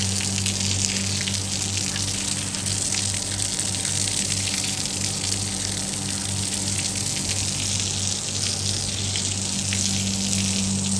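Water running and splashing from washing air-conditioner units, a steady hiss with small ticks, over a steady low hum.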